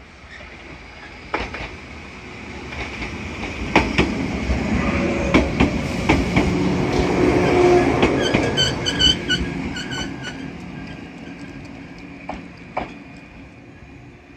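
A train passing along the platform: its running noise swells to a peak about halfway through and then fades, with wheels clacking over the rail joints. A brief high, rapidly pulsing whine sounds at the loudest point.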